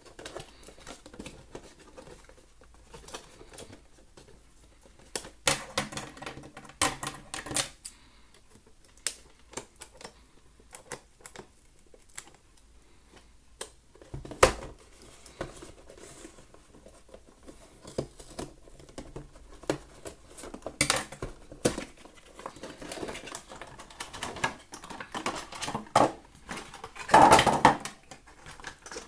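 Cardboard toy box with a clear plastic window being pulled open and handled: irregular crackles, clicks and taps of card and plastic, with the loudest burst of crackling near the end.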